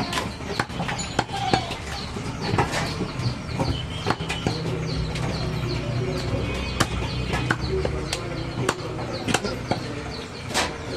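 Butcher's long knife cutting goat meat on a wooden tree-trunk chopping block: irregular sharp knocks and taps of the blade on the wood, several a second, over a steady low hum.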